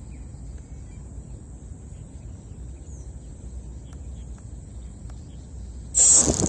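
Outdoor ambience: steady high-pitched insect chirring over a low rumble, with a few faint bird chirps. About six seconds in, a sudden loud rushing noise cuts in and starts to fade.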